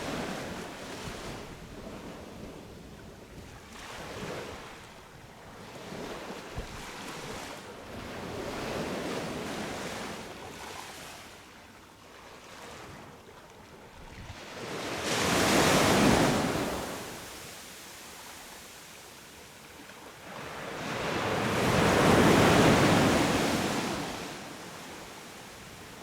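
Sea waves breaking and washing up a beach in slow surges, each swelling and fading over a few seconds. Two bigger waves, the loudest sounds, break about two-thirds of the way through and again near the end.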